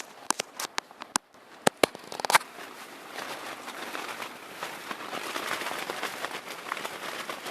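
Strong wind gusting and rushing, with a quick series of sharp snaps in the first couple of seconds.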